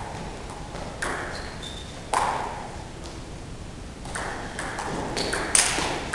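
Table tennis ball clicking sharply off the table and bats, with echo from a large hall. A few separate hits come in the first half, then a quick rally of hits starts about four seconds in, the loudest near the end.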